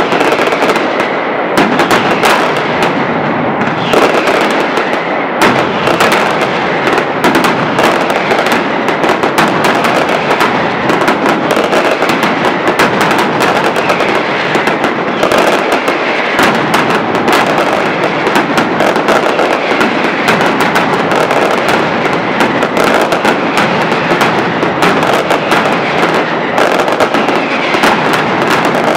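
Mascletà: strings of masclet firecrackers going off in a dense, unbroken barrage of loud bangs.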